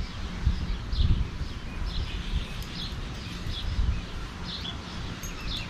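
Small birds chirping over and over in short, high calls, over a low, uneven rumble.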